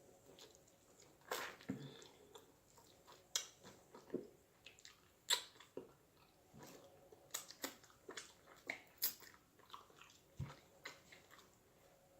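A person chewing food close to the microphone: irregular wet smacks and small crunches, roughly one a second.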